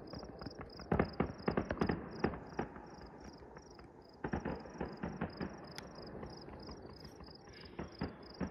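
Distant fireworks popping and crackling in rapid clusters, a burst of reports about a second in and another from about four to six seconds, with an insect chirping steadily at a high pitch, several times a second.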